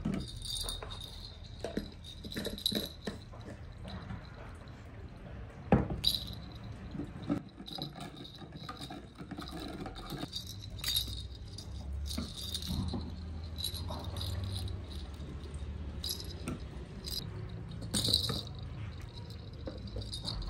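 Irregular light clinks and rattling: a metal spoon stirring sugar into orange juice in a plastic measuring jug, and a baby's plastic rattle toy being handled, with one sharper knock about six seconds in.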